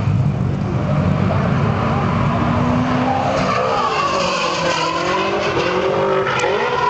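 A low engine rumble, then from about three seconds in a drift car's engine revving up and down hard as it slides sideways past, with its tyres squealing.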